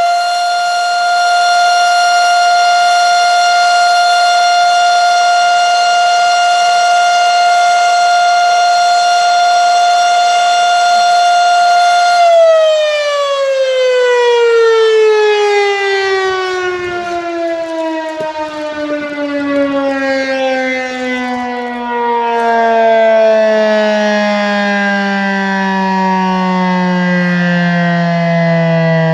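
1942 Federal Electric Model 5A three-phase, single-tone siren sounding at full speed with a steady high tone. About twelve seconds in it is switched off and winds down in a long falling glide.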